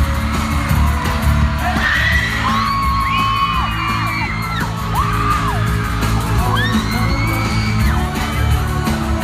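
Live pop band playing, with a steady beat and bass, while fans scream over it in long, high-pitched shrieks, first about two seconds in and again around seven seconds.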